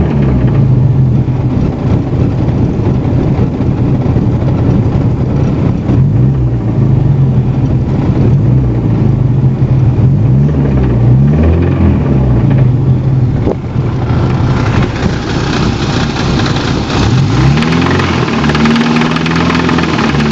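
Fiat 128 1300 cc four-cylinder engine running and revved up and down several times, making a strange noise that began suddenly from one day to the next. A hissier, harsher sound fills in from about two-thirds of the way through.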